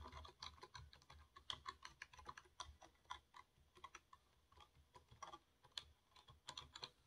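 Quiet, irregular typing on a computer keyboard: individual key clicks, several a second, with no steady rhythm.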